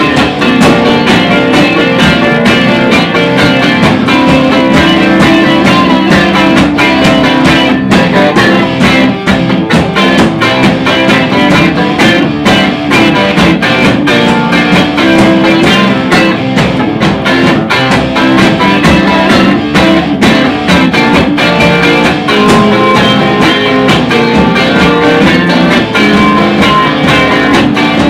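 Soul-blues instrumental played by a three-piece band: electric guitars over a drum kit.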